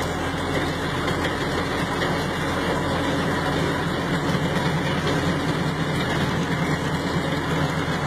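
A World War Two Allis-Chalmers high-speed artillery tractor running steadily as it drives along slowly, heard from inside its cab: a constant low engine hum under a dense mechanical din.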